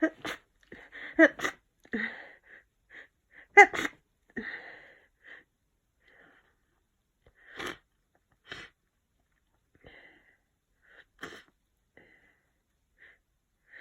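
A person with a head cold sneezing several times, the loudest sneeze a little under four seconds in, with quieter sniffly breaths scattered between.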